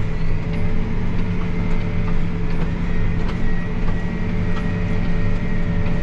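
Farm tractor engine running steadily under way, heard from inside the cab, with light rattles and creaks from the cab as it rolls across the corn rows.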